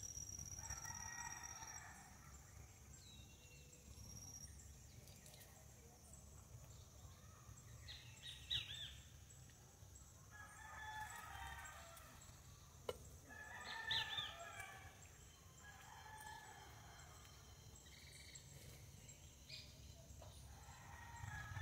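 Faint roosters crowing several times, each crow drawn out for a second or two, with a few quick chirps from small birds between them.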